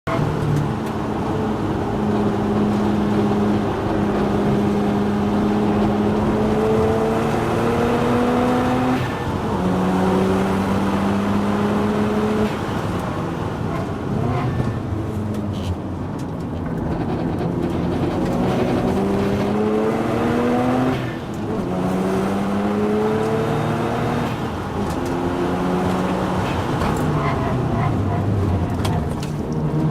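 Mazda RX-7's rotary engine pulling hard, its pitch climbing through the gears with sharp drops at the upshifts, easing off for a few seconds in the middle before accelerating again. The owner says an abnormal noise and vibration are still present on this run.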